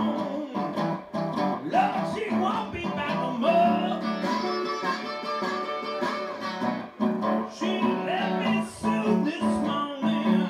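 Live blues song: a man singing into a microphone over his own strummed and picked guitar.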